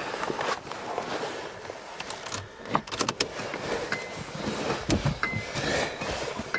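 Keys jangling with scattered clicks and knocks of handling inside a car, and two brief high beeps about four and five seconds in.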